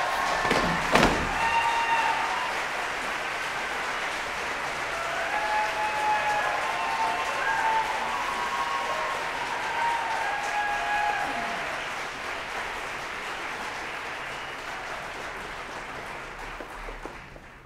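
Audience applauding and cheering, with short whoops over the clapping; the applause slowly dies away toward the end.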